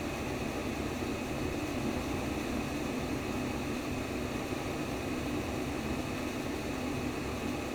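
Simulated womb sound: steady, unbroken white noise, with no beat or pulse standing out.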